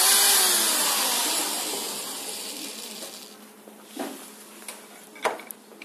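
A small electric motor driving a blower or fan whirs up and then winds down, a loud rush that fades over about three seconds as its pitch falls. Two sharp knocks follow, one about four seconds in and a louder one a little after five seconds.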